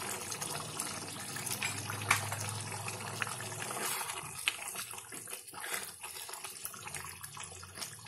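Chicken curry bubbling in a pan with a steady wet hiss, while a spatula stirs it and clicks against the pan a few times.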